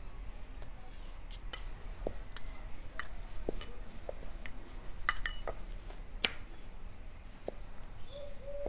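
A wooden rolling pin rolling out dough on a round rolling board, giving scattered light knocks and clicks, with a few short ringing clinks about five seconds in.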